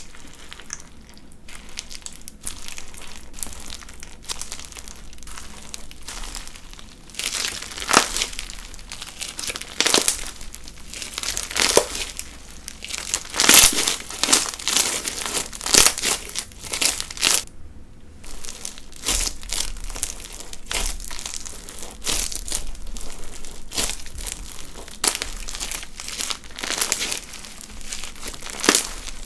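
Bead crunch slime being squeezed and pressed by hand: a continuous dense crackle of beads, with repeated louder crunchy squishes from about a quarter of the way in. The slime is sticky.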